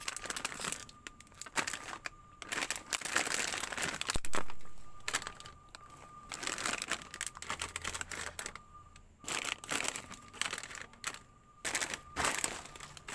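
Plastic snack packets crinkling in irregular bursts as they are handled and packed into a wire display rack, with one sharp click about four seconds in.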